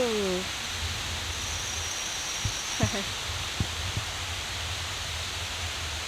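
Steady forest hiss with a few soft thumps of footsteps on a leaf-littered dirt path. A person's drawn-out voice trails off in the first half-second.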